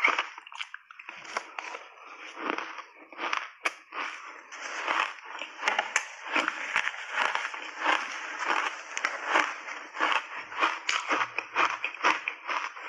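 Crunching and chewing of a mouthful of shaved ice coated with matcha powder and milk cream: scattered sharp crunches at first, then a dense, steady run of crunching from about five seconds in.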